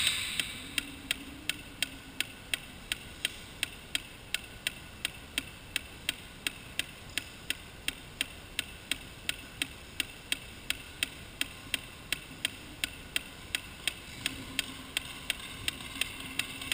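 Sharp, evenly spaced ticks at about three a second, keeping a steady beat.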